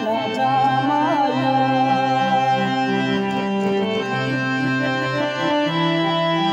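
Gojri mahiya folk song music, an instrumental passage of held, sustained melody notes over a low line that steps from note to note.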